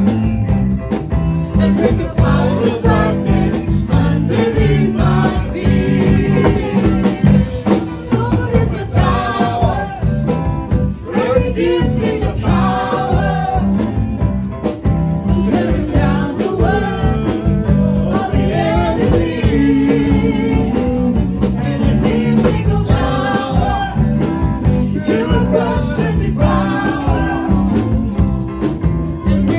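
Live worship music: an electric keyboard accompanying voices singing a gospel song, with a steady beat.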